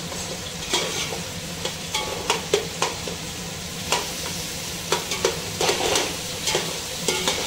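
Sliced onions sizzling as they fry in oil, stirred with a steel spoon that scrapes and clinks against the metal pot many times. The onions are being fried toward golden brown.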